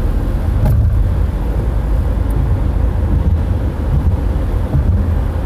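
Inside a car cabin at highway speed: a steady low rumble of road and engine noise.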